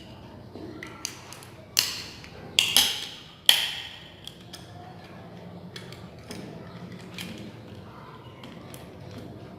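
The plastic top cover of a small 6-volt lead-acid battery being pried open with a tool: creaking plastic with three sharp snaps between about two and three and a half seconds in, then lighter clicks.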